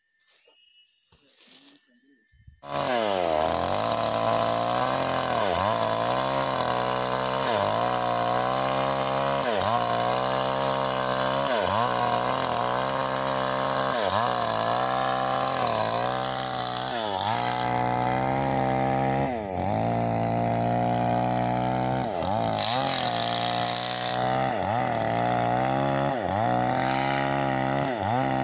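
Stihl MS 381 two-stroke chainsaw ripping lengthwise through a meranti log to cut planks, running at high revs that sag briefly every second or two as the chain bites into the wood. It starts suddenly about two and a half seconds in, after near silence.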